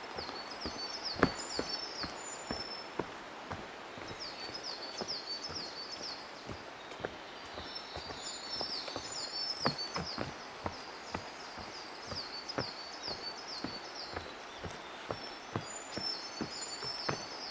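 Footsteps knocking on a wooden boardwalk, about two a second, while a songbird sings repeated phrases of quick, high notes, about five phrases a few seconds apart.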